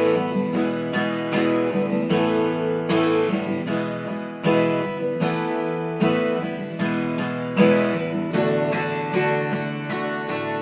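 SQOE Cranberries 41 acoustic guitar strummed in a steady rhythm, full chords ringing out. The strumming is a bit hard.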